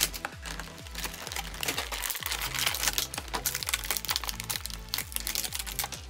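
Clear plastic packaging tray crinkling and crackling as hands pull an action figure and its accessories out of it, over background music with a steady low beat.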